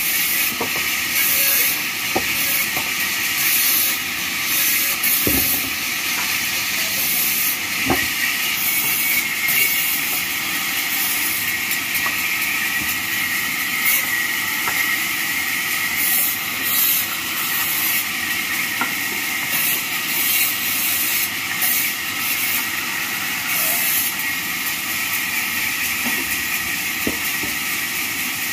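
Large vertical bandsaw running, its blade hissing steadily through wooden planks, the noise swelling and easing as each piece is pushed through. A few sharp knocks of wood being handled.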